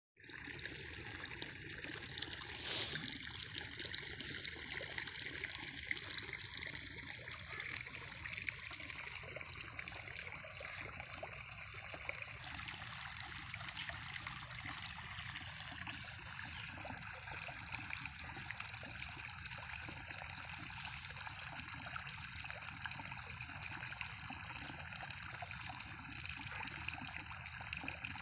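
Water trickling steadily, a continuous fine splashing hiss.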